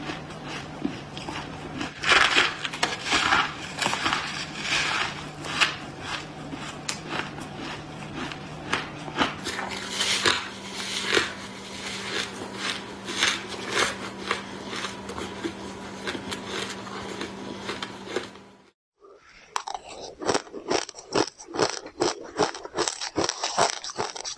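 Close-miked crunching of crushed ice, bitten off a packed lump and chewed in clusters of crisp crunches, over a faint steady hum. A little past three-quarters of the way through, the sound drops out briefly, then spoonfuls of crushed ice are chewed with quick, regular crunches.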